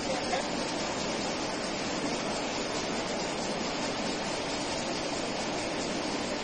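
Square gyratory sand screen running, with sand streaming out of its six discharge spouts onto a pile: a steady rushing hiss with no distinct rhythm.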